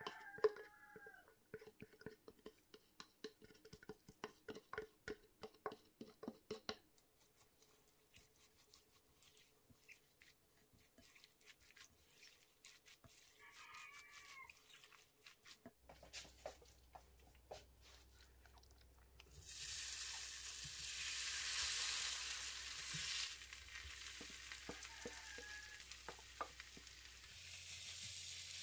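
A spatula scraping and stirring chive batter in a glass bowl, a run of soft clicks and taps. About two-thirds of the way in, the batter starts sizzling in a hot frying pan: loudest for a few seconds, then settling to a steady sizzle as it is stirred.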